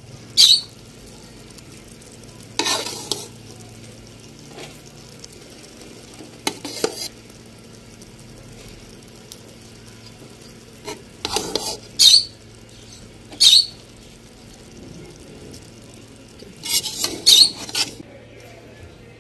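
Slotted metal spatula scraping and clinking against a metal cooking pot every few seconds as parboiled basmati rice is spread over egg masala for biryani, with a faint steady sizzle of the masala underneath. The sharpest clinks come about twelve and thirteen seconds in, with a quick flurry near the end.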